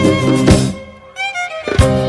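Background music: a melody over a steady beat. It breaks off for about a second in the middle, then comes back.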